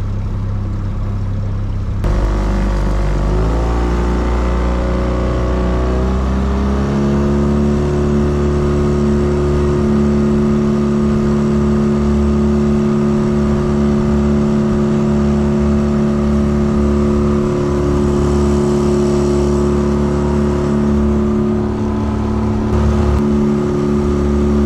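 A boat motor speeds up from about two seconds in, its pitch rising for several seconds, then runs steadily at speed.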